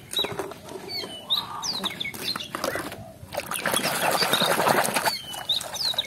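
Water splashing and sloshing in a plastic basin as a toy vehicle is swished and scrubbed by hand, loudest for a couple of seconds just past the middle. Birds chirp now and then.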